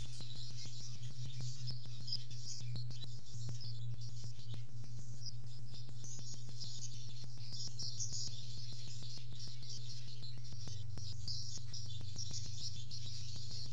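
Birds chirping and twittering, high-pitched and continuous, over a low steady hum and fine rapid clicking.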